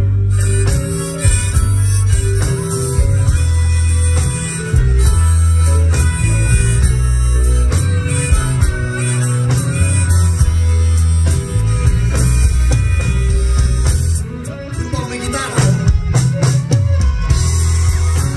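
Live band playing a blues-rock passage with a harmonica solo played into the vocal microphone over electric guitar and a steady bass line.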